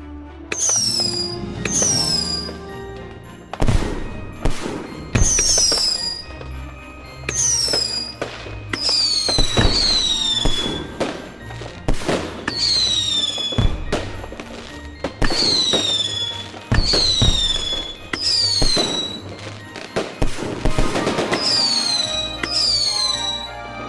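Fireworks going off in quick succession: many short whistles, each sliding down in pitch, among sharp bangs, with music playing underneath.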